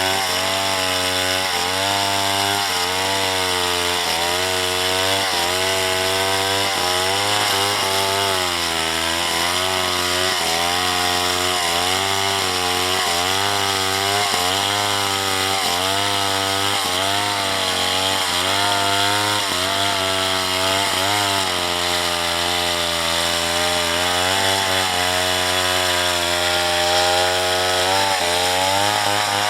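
Two-stroke chainsaw cutting through wood, the engine note dipping under load and recovering again and again, about once a second, as the chain bites into the cut.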